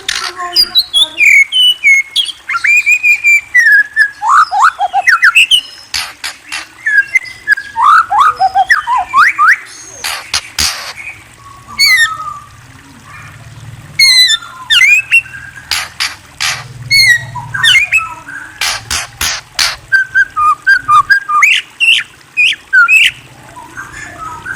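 A murai songbird singing a varied, fast run of whistled notes that slide up and down, mixed with sharp clicking notes, with a short pause about halfway through.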